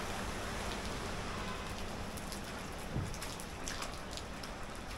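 A river rushing steadily, heard as an even hiss of water. From about two seconds in come light crunching footsteps on snow, with one soft thump near the middle.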